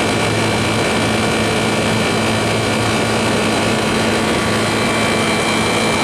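Carrier International Series 27,500 BTU window air conditioner running in cooling mode, heard from the condenser side at the back: a steady rush of fan air with a constant low hum and a few steady higher tones.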